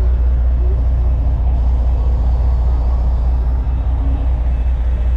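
The fishing boat's engine running, a loud, steady low drone heard inside the wheelhouse.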